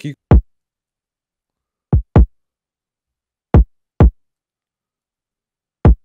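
A solo electronic kick drum sample playing a sparse, syncopated Brazilian funk kick pattern: six short, deep hits, two of them in quick pairs, with silence between.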